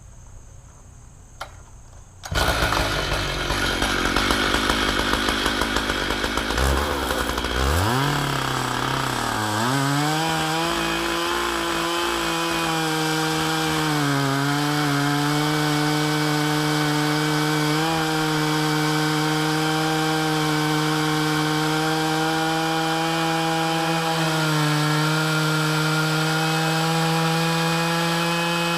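Stihl MS 880 two-stroke chainsaw with a 48-inch bar, milling a wet locust log. The saw comes in suddenly and loud about two seconds in, revs up over a few seconds, then holds a steady high-revving note under load as it cuts through the hardwood, with a few brief dips in pitch.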